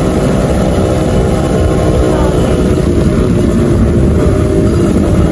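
Motorcycle with an HTX aftermarket exhaust running at low speed in traffic, a steady exhaust note over a heavy low rumble.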